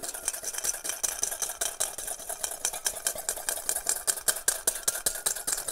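Wire whisk beating oil and vinegar in a stainless steel bowl, the wires clicking and scraping against the metal in a fast, steady rhythm as a vinaigrette is whisked into an emulsion.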